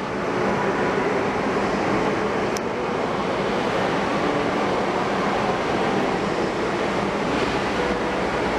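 A JR DE10 diesel-hydraulic locomotive hauling a train of container flatcars as it departs: steady diesel engine drone mixed with the rumble of the wagons rolling on the rails, with one sharp click about two and a half seconds in.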